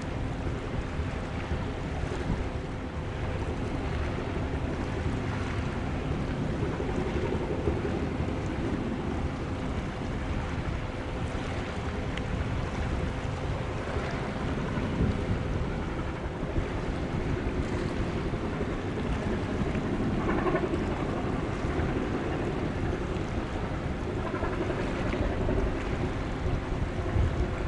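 Wind buffeting the microphone over the wash of waves, with a faint steady low hum underneath.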